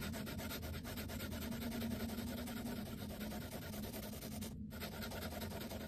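An eternal (inkless) pencil's tip scribbling back and forth on oil pastel paper: a steady scratchy rubbing of rapid strokes, with a brief break about two-thirds through.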